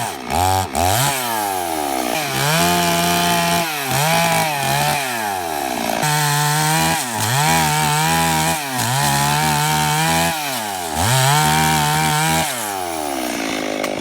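Chainsaw engine cutting wood, its pitch dipping as the chain bites and climbing back as it revs up, over and over every second or two. Near the end the engine falls back to a lower, quieter run.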